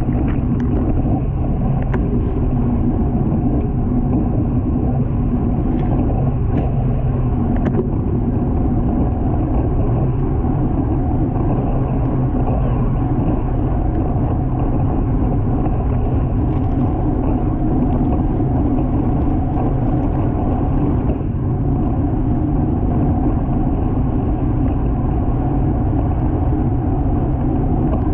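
Steady wind and road noise on the microphone while a road bicycle is ridden at race speed: an even, muffled rush with no breaks.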